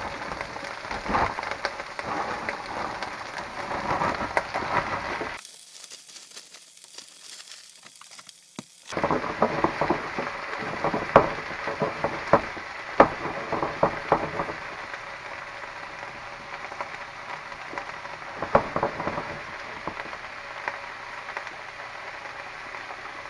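Frozen mixed vegetables frying in hot oil in a stainless steel skillet, sizzling and crackling with sharp pops. The sizzle drops out about five seconds in and comes back about three seconds later. From about nine to fourteen seconds in the pan is shaken, with a run of clatters and pops, before the sizzle settles to a steadier, quieter crackle.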